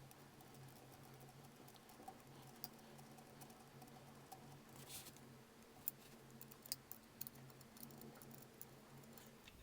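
Faint scattered clicks of a ball-head Allen wrench driving screws into a metal rail block, more frequent in the second half, over a low steady hum.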